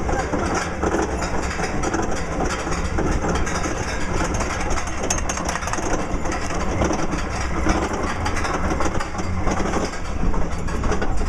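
Steady rumble and rush of a steel looping roller coaster train in motion, heard from a seat on board.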